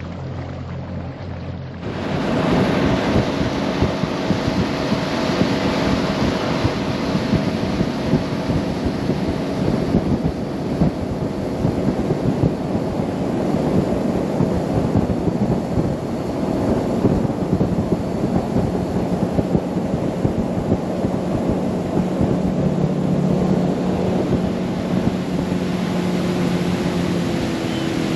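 A boat's outboard motor idles, then opens up about two seconds in and runs steadily under way, with wind and water rushing past. Its pitch drops a little twice near the end as the throttle eases back.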